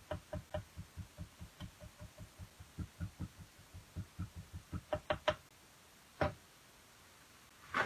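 Stamp cleaner dabbed over and over onto a rubber stamp: soft, regular tapping, about four taps a second, for about five seconds, then a few sharper taps and a single knock.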